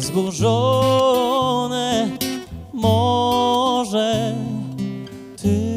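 A Polish song sung over guitar accompaniment: the voice holds two long notes with vibrato over steady bass notes.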